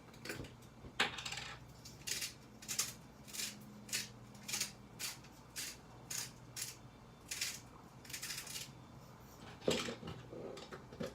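Salt and pepper grinder twisted over raw chicken thighs, short gritty grinding strokes in a steady rhythm of about two a second, with a knock near the end.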